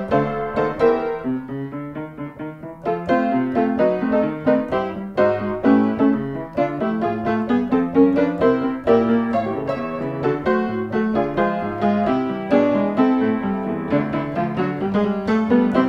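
Piano music playing a steady run of notes.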